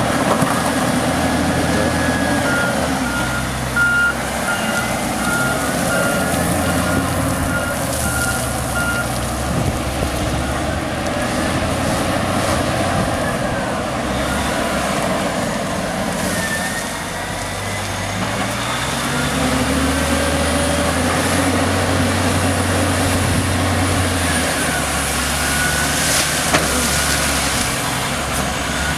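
Kawasaki wheel loader's diesel engine working, its pitch shifting as the engine speed changes midway, with the reversing alarm beeping about twice a second for several seconds near the start.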